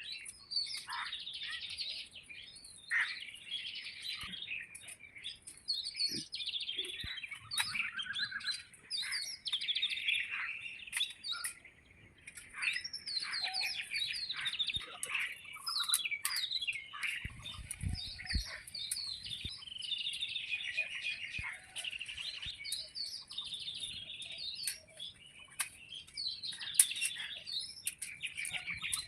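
Many small birds chirping and twittering continuously, with a few sharp clicks and a low thump mixed in.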